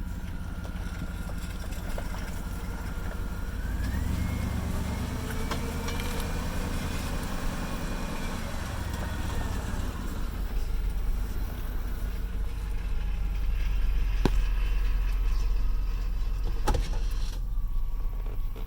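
2002 GMC Sierra 2500HD pickup's engine running, with a whine that rises in pitch about four seconds in, holds, and falls away again some six seconds later as the engine rumble swells and drops back. Two sharp clicks near the end.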